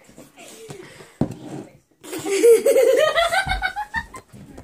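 Boys laughing: a long, pulsing laugh that starts about two seconds in and climbs in pitch, with a sharp knock about a second in.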